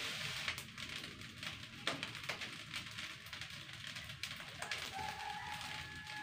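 Fried rice being stir-fried in a wok: a wooden spatula scrapes and knocks against the pan a few times over a steady frying sizzle.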